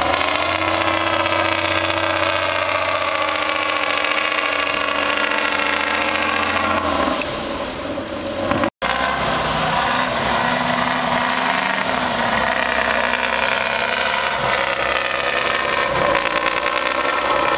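Diesel engine of a Tatra eight-wheeled trial truck running hard under heavy load on a steep dirt climb, pouring black smoke. The engine eases off about seven seconds in, the sound cuts out for an instant, then the engine pulls hard again.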